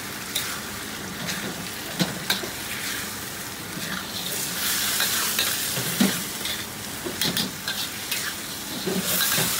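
Fish-fragrant eggplant in sauce sizzling in a wok over a high flame while a metal wok spatula stirs and tosses it, knocking and scraping against the wok now and then. The sizzle grows louder about halfway through.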